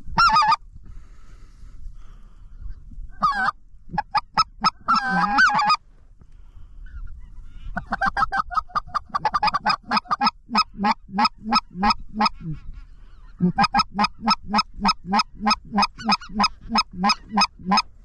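Specklebelly (greater white-fronted) goose calls: short, high yelps with a few scattered calls first, then two long, even runs of about three yelps a second.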